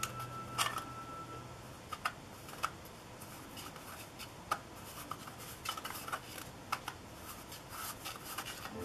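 Hard plastic petal-shaped lens hood being handled: irregular light clicks and rubbing of plastic on plastic.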